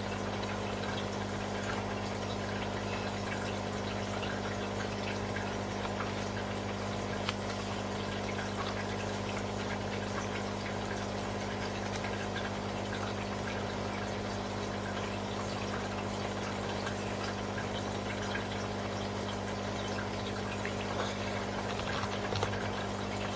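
Aquarium water pump running with a steady low hum, and water trickling and splashing, with a few faint clicks.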